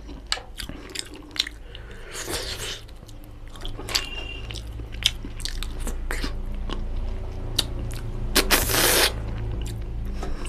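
Close-miked eating sounds of a person chewing rice and chicken curry eaten by hand: wet chewing, lip smacks and many short mouth clicks. There are two longer, louder noisy stretches, one about two seconds in and one near the end.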